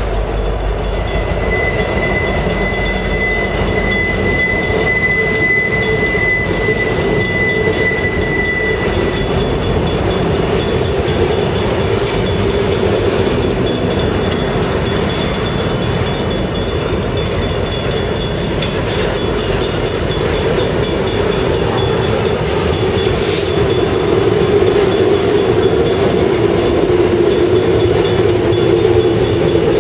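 Freight train of flatcars loaded with truck trailers rolling past close by: a steady rumble of wheels on rail, with a thin high steady squeal for several seconds near the start. The noise grows louder in the last few seconds as the oncoming locomotives draw near on the next track.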